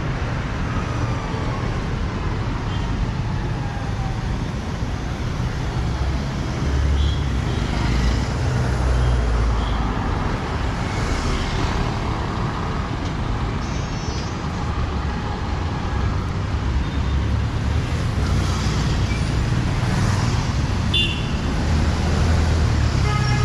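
Street traffic: a steady rumble of passing vehicles' engines and tyres, heavier about seven to ten seconds in, with a couple of brief horn toots.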